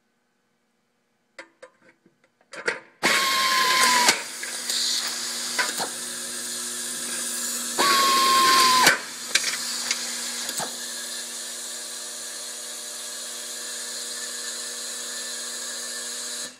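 Automatic screw-feeding inline screwdriver driving two screws about five seconds apart, each a burst of about a second with a high whine that sags slightly as the screw runs down and seats. A few light clicks come first, and a steady hum from the vibratory bowl screw feeder runs underneath once it starts.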